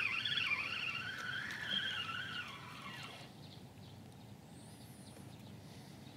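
Spinning reel on a feeder rod whirring as the line is wound in, its pitch rising and falling with each turn of the handle; it stops about three seconds in.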